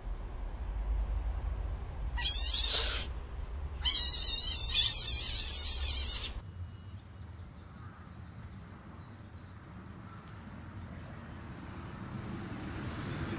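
Kitten meowing twice in a high pitch, a short call about two seconds in and a longer, wavering one a couple of seconds later.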